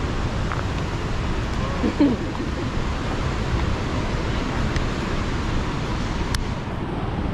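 Steady outdoor wind noise rumbling on the microphone, with a short voice call about two seconds in and a sharp click near the end.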